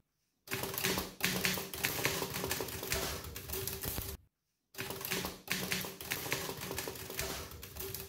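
Rapid typewriter typing: a dense clatter of key strikes that breaks off for about half a second near the middle, with a faint steady hum beneath.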